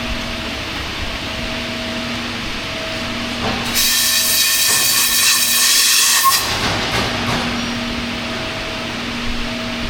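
Machine-shop machinery running with a low hum that pulses on and off about every two seconds, and a loud hiss lasting about two and a half seconds near the middle.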